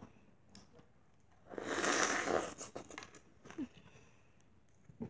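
Someone chewing crunchy breakfast cereal close to the microphone: small scattered crunches and clicks, with one louder burst of crunching about two seconds in.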